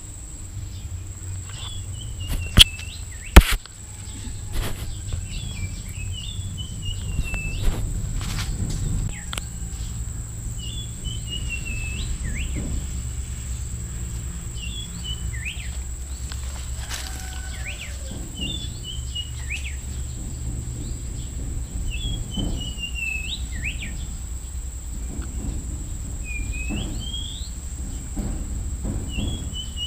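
A songbird repeating the same short phrase about every three to four seconds: a quick run of falling chirps ending in a sharp upward note. Two loud clicks come about three seconds in, over a steady low rumble.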